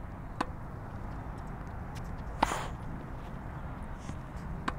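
A tennis ball being hit back and forth in a forehand drill: three sharp pops of the ball about two seconds apart, the loudest about halfway through, over a steady low background noise.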